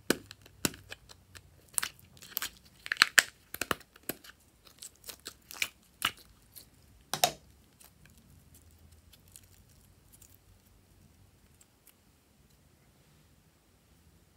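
Neon slime being pulled out of a plastic heart-shaped pot and stretched by hand: a run of sharp sticky pops and crackles, loudest about three seconds in. After about seven and a half seconds only a few faint clicks remain.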